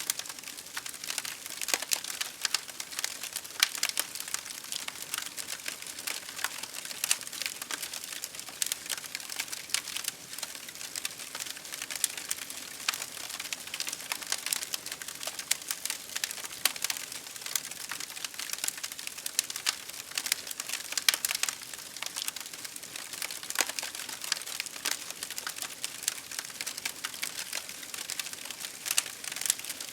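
Wood fire crackling with dense, irregular pops and snaps over a steady hiss.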